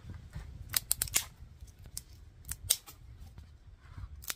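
Dry twigs being snapped by hand, a string of sharp cracks in small clusters: about four in quick succession around a second in, three more a couple of seconds later, and one at the end.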